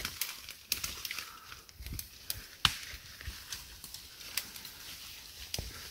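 Faint, irregular snapping and rustling of twigs and brush, with scattered small cracks and a few soft knocks.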